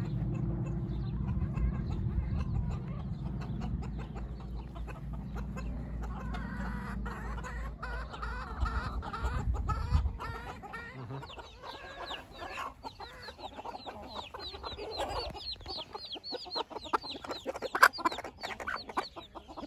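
Newly hatched silkie chicks peeping in quick, high, downward chirps, several a second, from about twelve seconds in, with a hen clucking. A low rumble runs under the first half and stops about ten seconds in.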